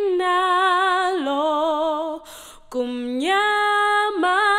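A woman singing a slow song in Xhosa, unaccompanied, holding long notes with vibrato. The line steps down about a second in, pauses for a breath a little past the middle, then climbs to a new held note on the word "kumnyama".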